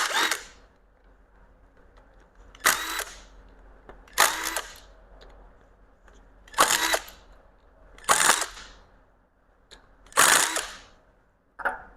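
Impact gun run in six short bursts of about half a second each, removing the bolts of the Mazda B2200 engine's harmonic balancer.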